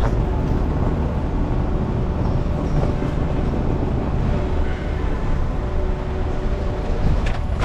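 Steady low rumble of a vehicle in motion, with a faint steady hum.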